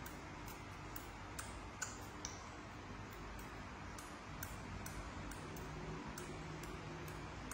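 Faint, quick clicks about twice a second from baby monkeys sucking on milk bottles, over a steady low hum.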